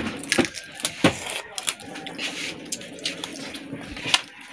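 Shells of cooked alimasag (blue swimming crab) being cracked and pulled apart by hand: a run of irregular sharp clicks and snaps.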